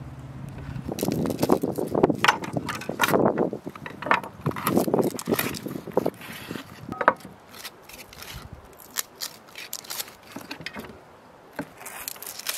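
Dry onion skin crackling and rustling as an onion is peeled by hand, with a knife scraping and cutting through raw veal on a wooden board. The sounds are busiest in the first half, then thin out to scattered crackles.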